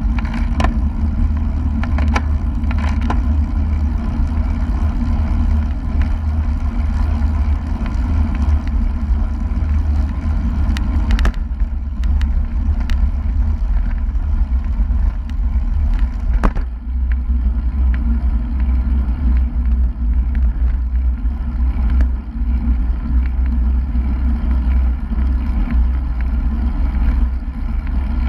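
Wind rushing over the microphone of a bike-mounted GoPro riding at about 30 km/h, a steady low rumble, with a few sharp clicks or knocks now and then.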